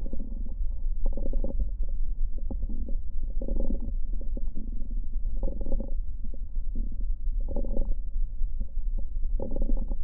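Breath sounds recorded through a stethoscope on a patient's chest. A breath comes about every two seconds, each carrying brief clicks that a panel of seven internists all identify as crackles.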